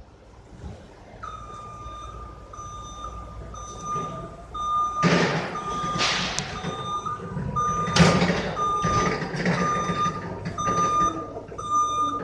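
Electric reach truck's travel alarm beeping in a steady series, about two beeps a second, starting about a second in, over the low hum of the truck's drive. Two louder rushes of noise come from the moving truck about five and eight seconds in.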